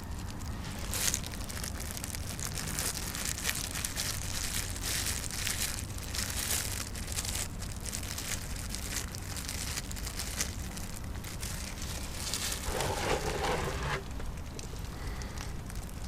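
Irregular crinkling and rustling handling noises, denser for a moment about 13 seconds in, over a low steady hum.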